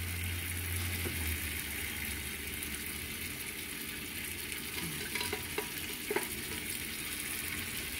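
Blended red chile sauce of ancho and guajillo chiles sizzling as it is poured into a hot frying pan of sautéed onion and tomatillos, with a few light clicks about five to six seconds in.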